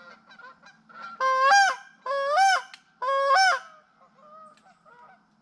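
Geese honking: three loud, evenly spaced honks close by, each rising then dropping in pitch, with fainter honking from the rest of the flock between them.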